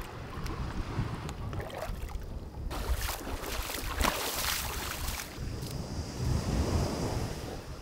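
Wind buffeting the microphone over shallow seawater. About three seconds in, feet wade and splash through the shallows for a couple of seconds, which is the loudest part.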